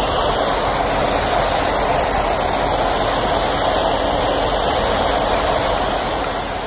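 Concrete mixer lorry unloading crushed stone: its engine and turning drum run steadily while the stone rushes down the chute onto a pile. The sound begins to fade near the end.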